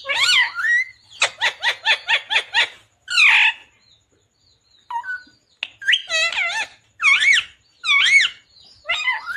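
Ringneck parakeet (rose-ringed parakeet) calling: a rapid run of about a dozen short chirps, then a string of wavering calls that rise and fall in pitch, with a short pause in between.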